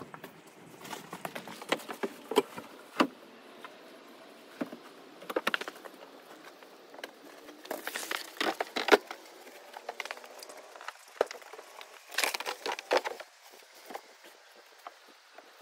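Summer tires on rims being handled and set down in storage: bursts of knocks and clicks that come back every few seconds.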